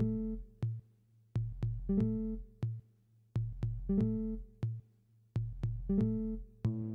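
Background music: a beat of sharp clicks over a low bass line and short pitched notes, the same phrase repeating about every two seconds. A fuller run of notes comes in near the end.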